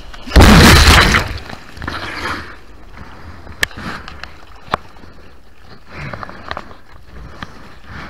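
Whitewater of a small breaking wave rushing over a bodyboard and its waterproof camera: a loud rush of water about half a second in, lasting about a second. Then foam fizzing and water sloshing against the board, with a few sharp splash clicks.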